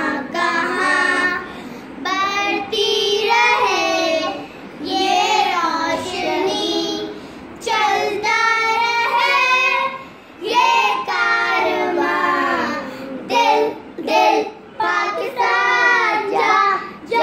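A child singing alone, high-pitched, in phrases with held, wavering notes and short breaths between them, with no accompaniment.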